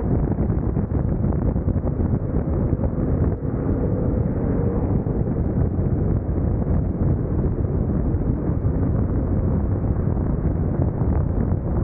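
Steady wind rush on the microphone of a moving motorcycle, with a BMW R1150GS Adventure's boxer-twin engine running underneath.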